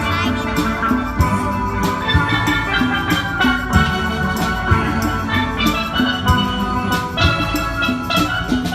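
Steel band playing: several steelpans ringing out a tune over a steady drum beat.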